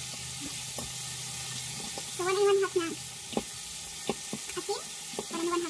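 A fork stirring and scraping through a chicken mixture in a plastic mixing bowl, with a grainy hiss and a few light clicks of the fork against the bowl. A short, high-pitched vocal sound comes about two seconds in and again briefly near the end.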